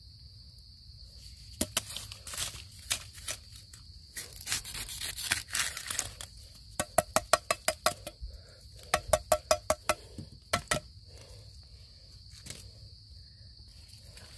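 Machete striking bamboo shoots: scattered sharp hits and rustling of leaf litter, then in the middle two quick runs of about eight short, slightly ringing knocks, a second or so apart. Insects buzz steadily throughout.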